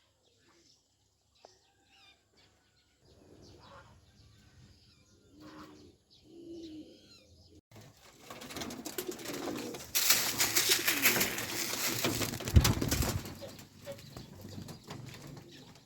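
Farm birds cooing and calling softly, then a loud flurry of flapping wings lasting a few seconds past the middle.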